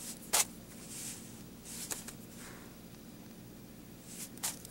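Small tabletop handling sounds as a paintbrush is set down on a palette: a sharp click just after the start, soft rustles, and another click near the end.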